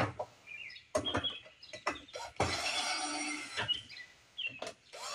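Power drill running in a burst of about a second near the middle, amid sharp clicks and knocks of hand work on a push mower's engine, with birds chirping several times.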